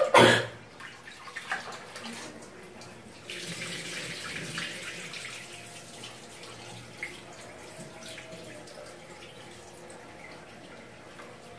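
Soaked rice being rinsed under a tap: water running and splashing into a vessel, strongest for a few seconds near the middle, then fainter. A brief loud clatter right at the start.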